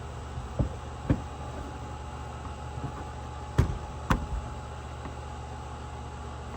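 Four sharp knocks in two pairs, each pair about half a second apart, as hard objects are handled while a chainsaw bar is dressed. They sit over a steady low hum.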